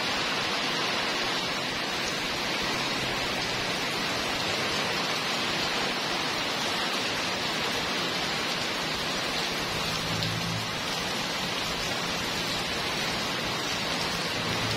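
Heavy rain pouring steadily, a dense even hiss of drops on wet pavement, cars and a tarpaulin cover.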